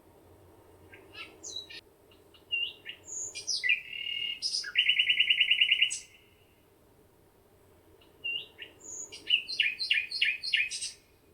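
A songbird singing two phrases of varied chirps and whistles, the first ending in a fast trill, with a pause of about two seconds between them.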